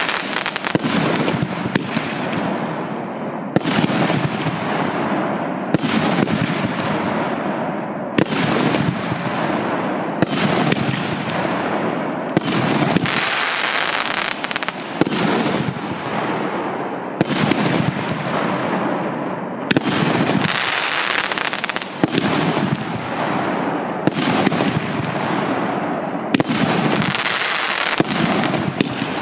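50 mm consumer firework battery (cake) firing its shots one after another, about one every two seconds. Each shot is a sharp bang followed by a long fading crackle from the burst.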